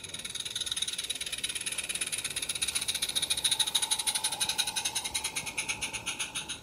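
Garden-scale live-steam model train running past, a rapid, even rhythm of beats and clicks that grows louder as the train comes out of the tunnel.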